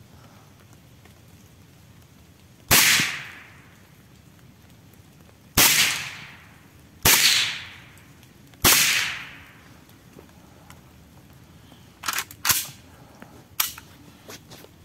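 Four shots from a Saiga-410 semi-automatic .410 shotgun, each with a short echoing tail. The first stands alone, and the last three come about a second and a half apart. About three seconds after the last shot come three quieter, sharp clacks.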